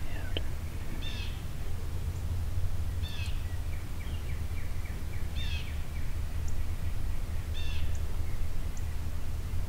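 Woodland birds: a songbird gives a short, sharp call four times, about every two seconds, with fainter chips from another bird, over a steady low rumble.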